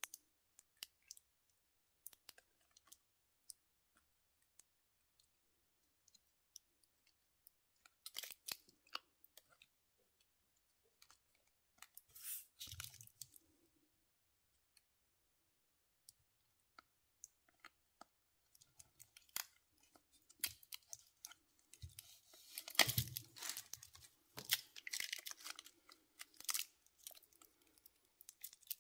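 Quiet close handling of a stainless-steel G-Shock bracelet and its paper hang tag: scattered light clicks and short rustles as the tag's string is worked off the links, with a busier run of rustling and clicking in the last third.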